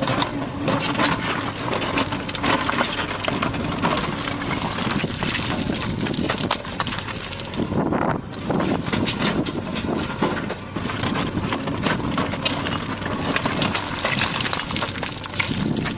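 JCB 3DX backhoe loader's diesel engine running while loose stones clatter and knock against one another and against metal, in quick, irregular impacts throughout.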